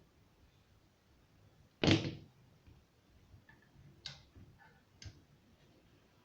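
A single sharp knock, as of a hard object set down or bumped, about two seconds in, followed by two lighter clicks a second apart.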